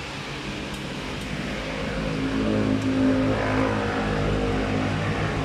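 A motor vehicle engine running at a steady low pitch, growing louder about two seconds in and then holding.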